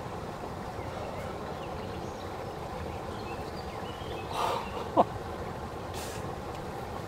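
Quiet outdoor background with a person's breathy exhale about four and a half seconds in, followed at once by a short, sharp squeak that slides steeply down in pitch, the loudest sound here, and a brief hiss a second later.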